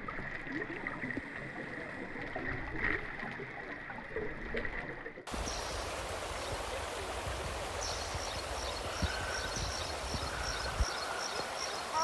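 Shallow river flowing over rocks. For the first five seconds it is heard underwater, muffled gurgling with a faint steady tone, then it cuts to a steady rush of water at the surface. From about halfway in, a faint high chirp repeats about three times a second.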